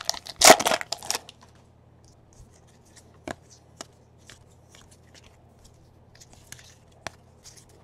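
Foil wrapper of a trading-card pack crinkling and tearing for about the first second, then a few sharp flicks and snaps as the cards are flipped through by hand.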